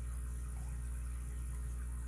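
Steady low electrical hum with faint background hiss, and no distinct clicks or knocks.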